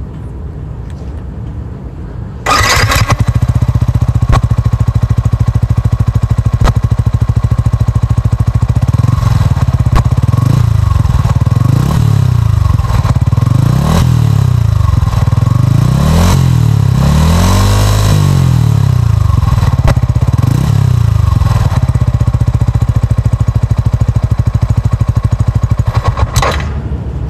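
Yamaha R15 v3's 155 cc single-cylinder engine running through its stock exhaust. It turns suddenly much louder about two and a half seconds in, then idles steadily. Through the middle it is revved several times, rising and falling, with the highest rev about two-thirds of the way through, before it settles back to idle.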